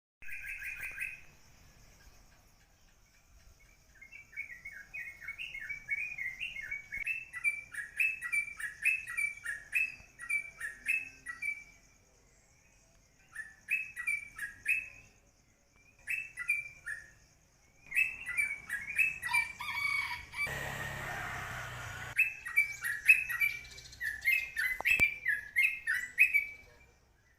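A small songbird chirping in rapid, repeated phrases, with pauses between runs. About twenty seconds in, a short burst of hissing, rustling noise lasts for roughly a second and a half.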